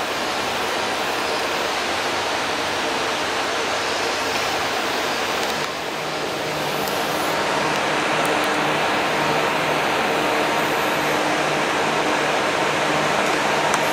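Steady machine noise: an even hiss with a low, constant hum, dipping briefly about six seconds in.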